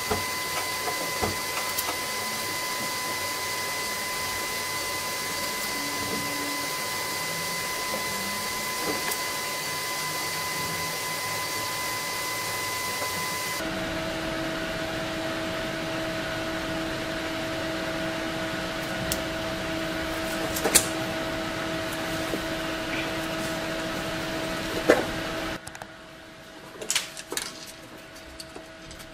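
Steady machine hum and hiss, like a running fan, whose pitch changes suddenly about halfway through and which drops away near the end, with a few sharp clicks in the second half.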